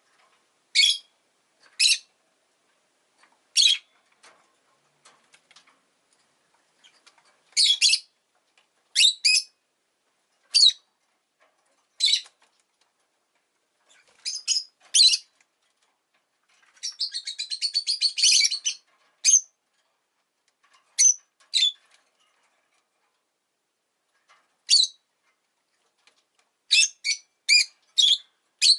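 Rosy-faced lovebird giving loud, sharp single chirps every second or two, with a fast chattering run of notes lasting about two seconds just past the middle and a quick cluster of chirps near the end.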